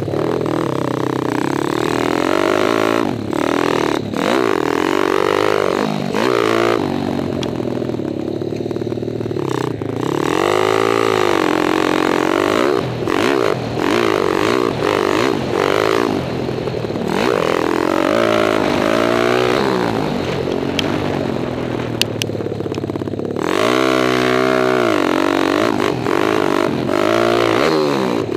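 Kawasaki KLX dirt bike's single-cylinder four-stroke stroker engine revving up and down under hard riding, its pitch climbing and falling again and again with the throttle and shifts.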